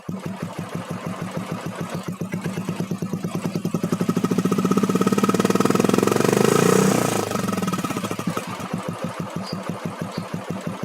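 Royal Enfield Bullet's single-cylinder engine idling with an even exhaust thump, set up to give the old Bullet's thump. It is revved once, building up over a few seconds, then drops back to idle.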